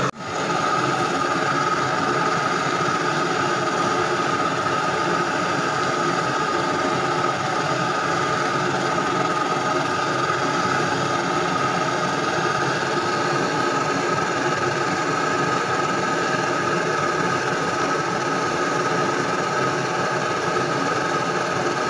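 Steady, even rushing noise of a large gas burner running at full flame under a wide wok of rendang simmering in coconut milk.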